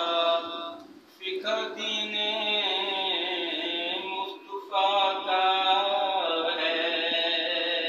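A man's voice chanting a prayer in slow, melodic recitation, drawing out long held notes. There are two short pauses, about a second in and again a little past the middle.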